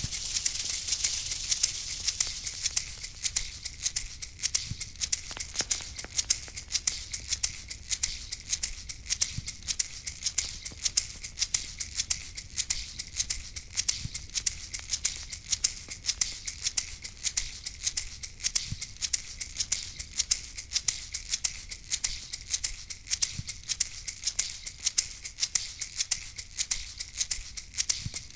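Shaman's rattle shaken in a steady, quick rhythm, with a soft low thump about every four to five seconds.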